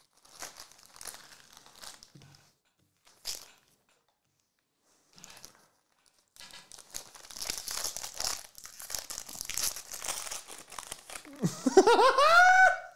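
Baseball card pack wrappers crinkling and tearing as packs are ripped open and the cards handled, on and off at first and then steadily for several seconds. Near the end a loud vocal exclamation rises in pitch and holds.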